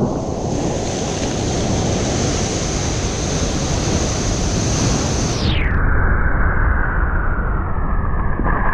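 Heavy sea surf breaking on rocks, with strong wind buffeting the microphone: a loud, steady rush. About five and a half seconds in it suddenly turns dull and muffled.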